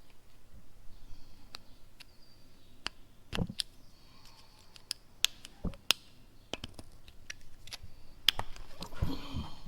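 Scattered light metallic clicks and ticks of hand tools picking at a broken bolt stuck in a cast bolster's threaded hole, with two duller knocks, one about a third of the way in and one past halfway.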